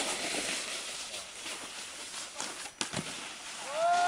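Snowboard base scraping and sliding over slushy, patchy snow, a steady hiss, with a single knock about three seconds in. Near the end a person gives a short whoop that rises and then falls in pitch.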